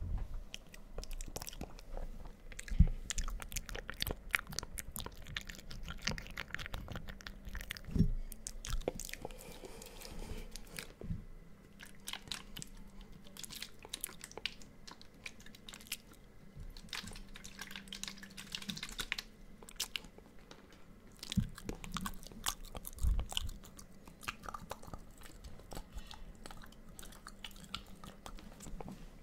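Close-up ASMR mouth sounds into a microphone: a dense, irregular run of clicks and smacks. A few louder low thumps stand out among them.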